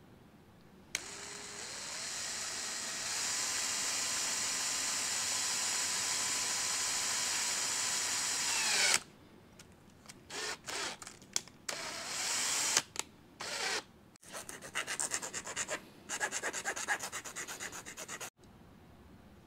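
Cordless drill spinning up and running steadily for about eight seconds as it bores through a small black plastic trim piece, then several short bursts of the drill. Near the end comes a quick run of repeated scraping strokes as the hole is cleaned out with a hand tool.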